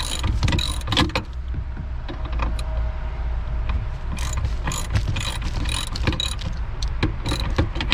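Ratchet wrench clicking in bursts as it loosens a T50 Torx seat belt anchor bolt.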